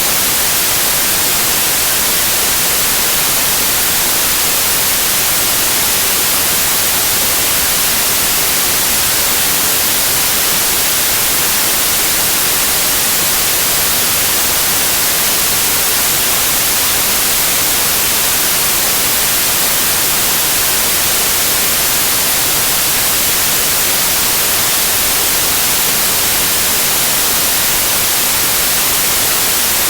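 Steady white noise in the style of TV static: an even, unbroken hiss, strongest in the high end, with no changes or breaks.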